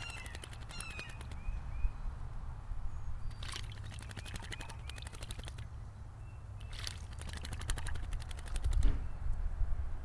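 American robin bathing, flicking its wings and body in shallow water in quick bouts of rapid splashing: one at the start, one a few seconds in and another past the middle. Faint short chirps from other birds sound in the first half, over a low steady rumble.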